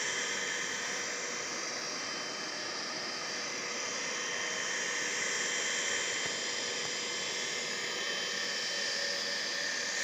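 Electric irrigation water pump running steadily: a continuous rushing whir with a thin steady whine on top.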